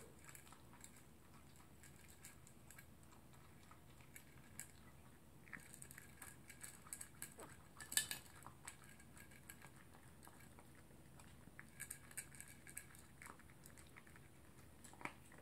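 Poodle eating from a bowl: faint chewing with scattered clicks of food and teeth against the bowl, busiest about halfway through and again near the end, with one sharper click about eight seconds in.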